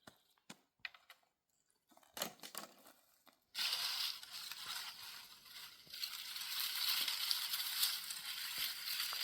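A few scattered sharp crunches and clicks, then, about three and a half seconds in, a steady loud hiss starts abruptly and holds.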